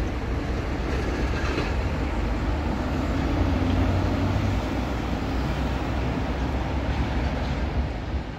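Intercity coaches' diesel engines and tyres, a steady low rumble as the coaches pull into the terminal, with a faint engine drone swelling about three seconds in.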